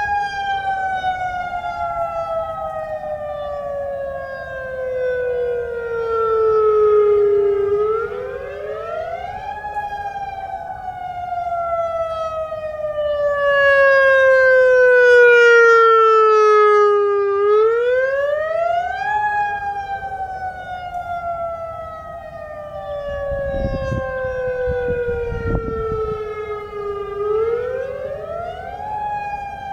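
Federal Signal EOWS 612 electronic outdoor warning siren sounding its Attack signal for a test. Its tone rises quickly and then falls slowly, repeating about every ten seconds.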